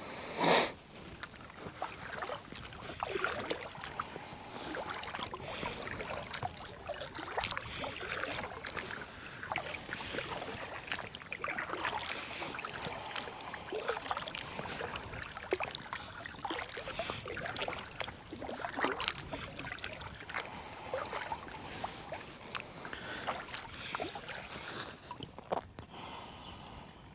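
Kayak paddle strokes in water: irregular splashes and drips. A brief, much louder burst comes about half a second in.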